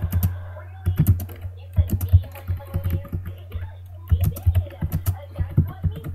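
Typing on a computer keyboard: quick runs of key clicks with short pauses between them, over a steady low electrical hum.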